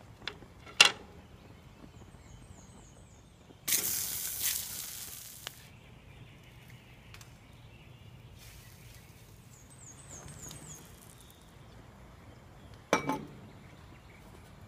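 A sharp click about a second in. Then a slice of Spam meets a hot cast iron skillet and sizzles loudly, the hiss starting suddenly and fading over about two seconds. A fainter sizzle comes later, and another click near the end.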